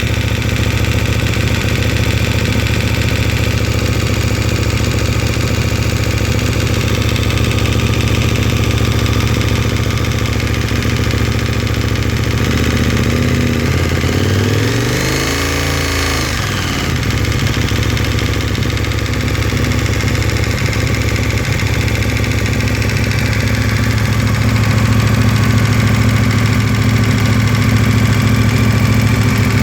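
KTM 1290's V-twin engine idling with a metallic clatter, its pitch briefly rising and falling around the middle. The owner hears this noise only while the engine is cold, and it disappears once the oil reaches 70 °C.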